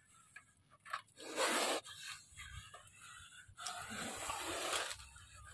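Wire cage trap being shaken and scraped over a mesh bag to dislodge a monocled cobra that is gripping inside, with hissing bursts about a second and a half in and again, longer, from about three and a half seconds to five.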